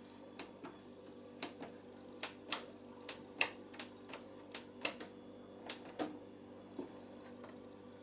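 Faint, irregular clicks from a washing machine's control panel as its buttons are pressed and its programme selector dial is turned through its detents, over a faint steady hum.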